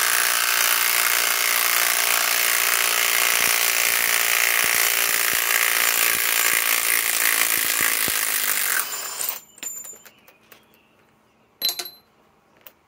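Kobalt cordless right-angle impact wrench hammering continuously as it backs out a long, thick lag screw, stopping about nine seconds in. A few light clicks and one short sharp knock follow.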